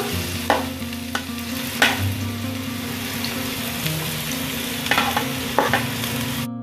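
Sliced onions sizzling as they go into hot coconut oil and ghee, stirred with a metal spoon that clicks and scrapes against the pot a few times. The sizzle cuts off suddenly just before the end.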